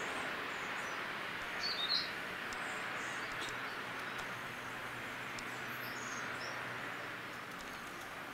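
Outdoor ambience: a steady background hiss with a few short bird chirps, the clearest about two seconds in.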